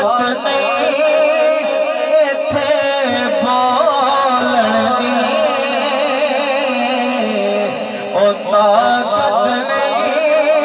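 Man singing a naat in long, wavering, ornamented lines into a microphone over a PA system, with a steady held tone underneath.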